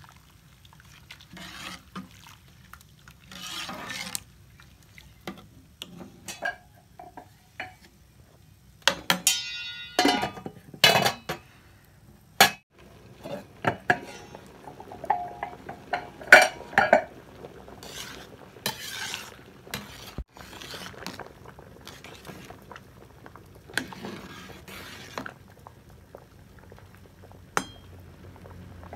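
A metal ladle stirs rice and vegetables in an aluminium pot, scraping and clinking against the sides. Scattered louder clanks come from the pot and its metal lid, one of them ringing briefly.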